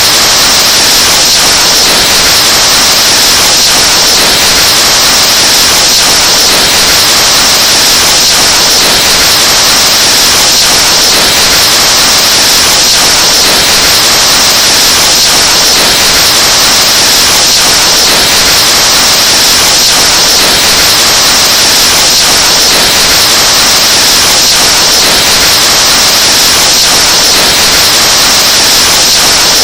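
Someone blowing into a microphone, overdriven and distorted: a very loud, harsh, steady hiss, brightest in the treble.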